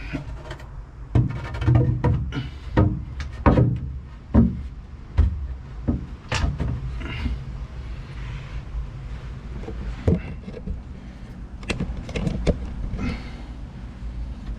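Irregular knocks, clunks and scrapes of a fitting-out part being handled and tried in place, loudest in the first few seconds and again near the end.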